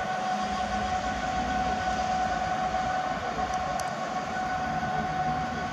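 Intermodal container freight train rolling past, wagons running over the rails in a steady rumble with a steady whine above it.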